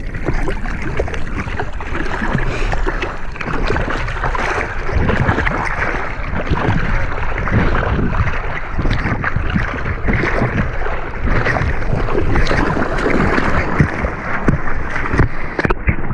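Seawater splashing and sloshing against a surfboard as it is paddled through small waves, heard from right at the water surface, with many irregular splashes over a continuous rush of water.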